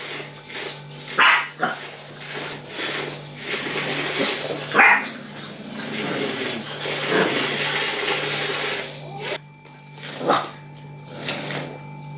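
Shar-Pei puppies barking: several short, high yaps spread over the seconds, with gaps between them.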